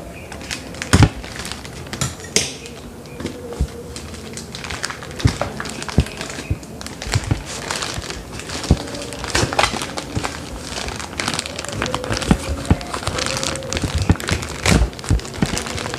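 Blue plastic courier pouch crinkling and crackling as hands work it open, with many irregular sharp crackles; by the end the plastic is torn.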